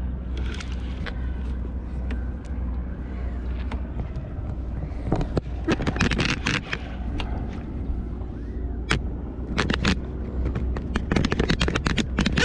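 Boat engine idling with a steady low rumble. Groups of rapid sharp clicks and crackles come about five seconds in, around ten seconds, and again near the end.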